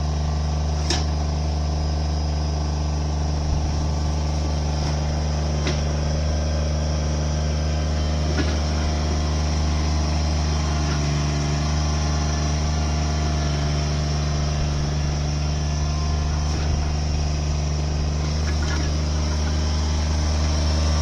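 Engine of a bucket-equipped machine running steadily, a constant low drone, with a few light knocks over it.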